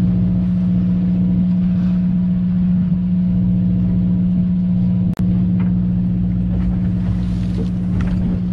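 Fishing boat's engine running with a steady low drone held at one pitch, with a single brief sharp click about five seconds in.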